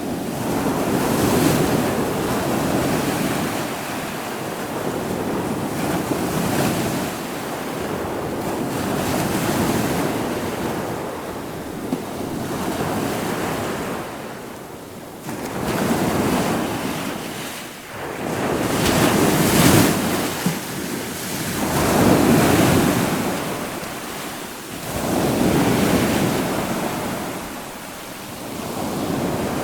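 Ocean surf: waves breaking and washing in, swelling and falling back every three to four seconds, with the biggest surge about two-thirds of the way through.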